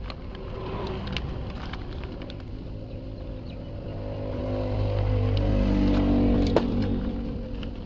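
A motor vehicle engine passing by: it grows louder to a peak about six seconds in and then fades, with a few sharp clicks over it.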